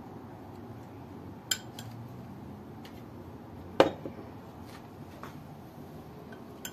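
A spoon clinking against glassware three times: a light tap about a second and a half in, a loud clink with a short ring near the middle, and a faint tap at the end.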